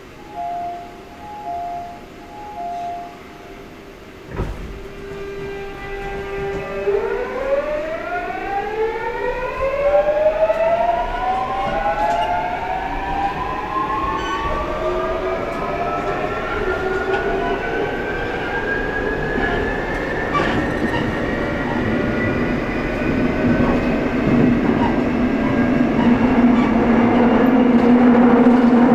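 Interior of a Seoul Metro Line 8 8000-series first-batch train accelerating away: three short beeps and a thump, then the GEC Alsthom GTO-VVVF traction inverter holds a steady tone and sets off into a whine of several tones rising in pitch in stages as speed builds, with rail running noise growing louder.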